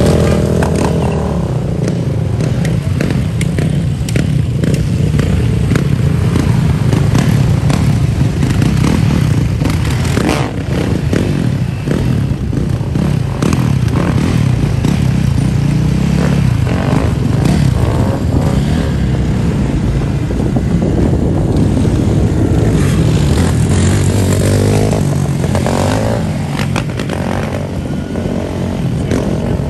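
Several dirt bikes and sport quads running together in a dense engine din, revs rising and falling, with a rev-up about a second in and another near the end.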